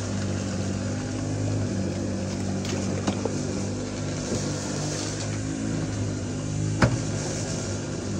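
An engine running steadily, with two sharp knocks, one about three seconds in and a louder one near seven seconds.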